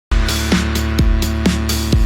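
Electronic dance music with a steady beat, low drum hits that drop in pitch about twice a second over held synth tones.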